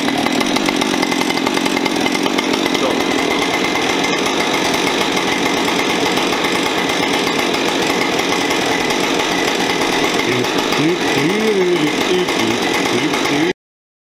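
Brand-new Husqvarna 550 XP Mark II two-stroke chainsaw running steadily at idle on its very first run, with zero hours on the engine. It cuts off abruptly near the end.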